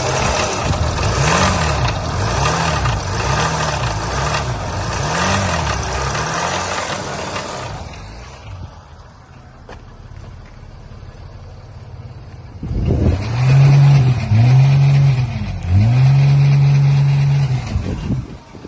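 2012 Mercedes ML350's V6 engine being revved: a series of short blips for the first several seconds, a few seconds settled at idle, then three loud revs held high, each dropping back briefly between them. It is revved to show an engine knock that the owner reports.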